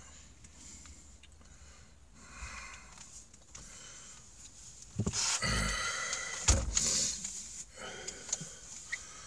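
Flathead screwdriver working at the reverse-threaded retaining screw inside a Makita drill's chuck: quiet handling clicks and rattles, then a louder stretch of scraping and clicking, with two sharp clicks about five and six and a half seconds in.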